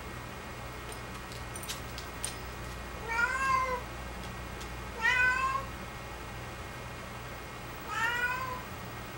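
Domestic cat meowing three times, about two to three seconds apart, each call rising and then falling in pitch.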